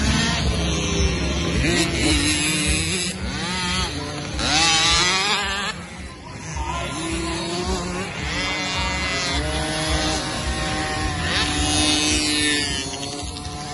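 Several 50cc two-stroke kids' motocross bikes, among them a KTM SX 50, revving hard around the track. Their engine pitch rises and falls with each throttle change, loudest around five seconds in.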